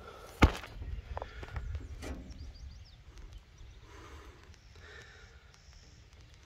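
Small air-cooled engine of a ride-on miniature railway locomotive idling as a low rumble, with a sharp knock about half a second in and a few lighter clicks.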